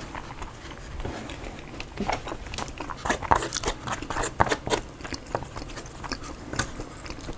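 Eating sounds of a salad-style burrito bowl: chewing with small crunches, and a plastic fork clicking and scraping in the bowl. The clicks come thickest from about two to five seconds in, then thin out.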